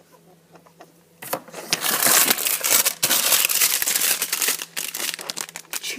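A chimichanga's plastic wrapper crinkling continuously as it is handled, starting about a second in.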